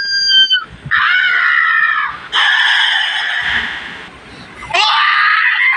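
A run of cartoon scream sound effects, one after another: a held high scream cutting off just after the start, a scream that bends up then down, a rougher scream that fades away, and another that starts near the end.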